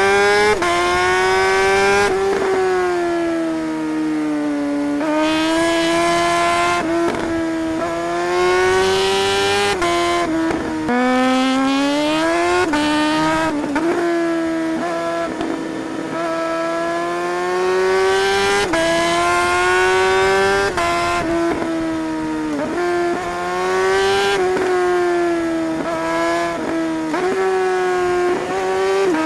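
Suzuki GSR 600 K8's inline-four engine and exhaust under a rider's throttle, its pitch climbing as it accelerates and dropping away sharply each time the throttle closes or a gear changes, over and over.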